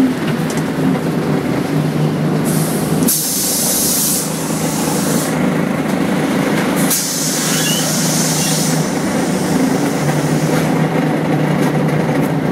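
Volvo B10BLE bus's diesel engine running steadily, heard from inside the cabin, with two bursts of air hiss from the bus's pneumatic system, about two and a half seconds and seven seconds in, each lasting one to two seconds.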